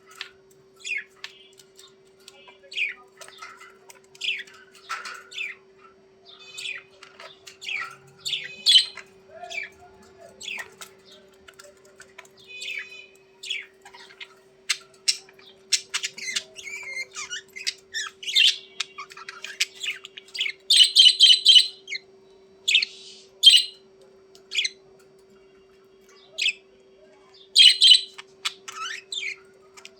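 Budgerigars chirping and warbling in a busy string of short calls, with a few louder, harsher squawks about two-thirds of the way through and again near the end.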